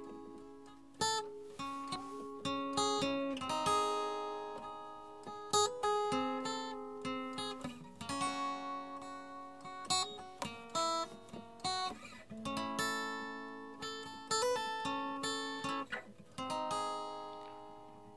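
Background music: acoustic guitar strumming chords, each strum ringing out and fading.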